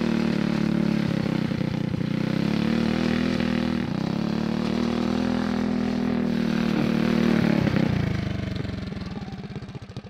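Go-kart's Tillotson 212 single-cylinder four-stroke engine running under throttle, its pitch rising and falling several times as the kart is driven. About eight seconds in it drops off to a slow, pulsing idle.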